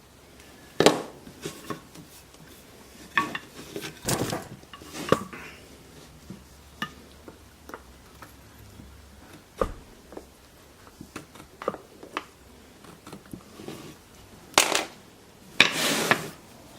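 Scattered clicks, knocks and short scrapes of wooden clamp-extension pieces and hand tools being handled and set down on a workbench, with the loudest knocks about a second in, around four to five seconds in, and near the end.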